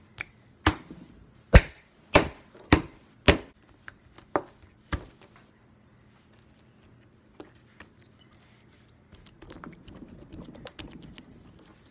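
A hand slapping a blob of slime on a wooden table: about eight sharp smacks, roughly one every half second, over the first five seconds. Near the end comes a quieter patch of squishing and crackling as the slime is handled.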